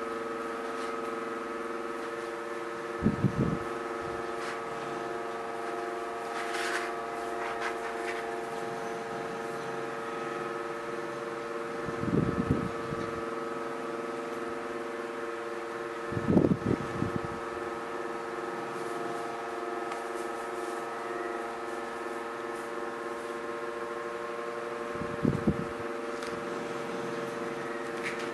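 A steady electric hum made of several tones, with four short low thumps spread through it as a green plastic block is pressed and rolled over the drills of a diamond-painting canvas on the table.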